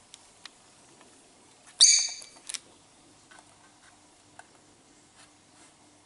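Lovebird giving one loud, high-pitched call about two seconds in, followed at once by a shorter chirp; faint light ticks before and after.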